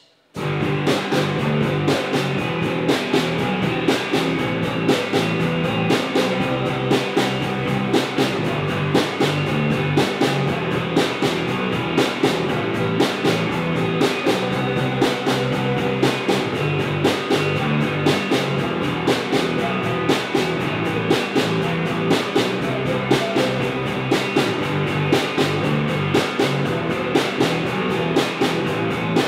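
A punk band playing live in a room: electric guitars and a drum kit kick in together right at the start and play on loud, over a steady drum beat.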